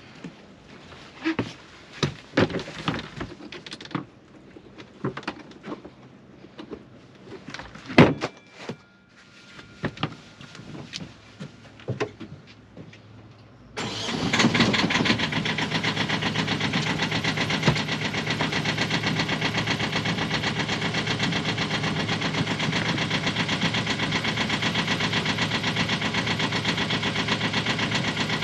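A few scattered knocks and clunks, then, about halfway through, the sailboat's freshly rebuilt inboard engine comes on abruptly and runs steadily at idle with an even, rapid beat.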